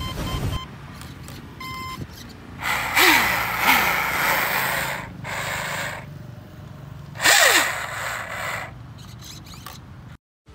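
Brushless motor (2845 size, on a 4S battery) of a homemade RC rigger boat run up in several short throttle bursts with the boat out of the water, its 35 mm propeller spinning in the air. It makes a high whirring that dies away with a falling pitch after each burst. The loudest bursts come about three seconds in and about seven seconds in, the last lasting about a second and a half.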